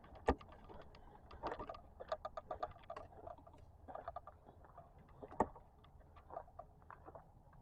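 Groundhog making rapid, irregular clicking and ticking sounds. There is a dense run of clicks for a second or two, then scattered sharp ticks, one louder click a little past halfway.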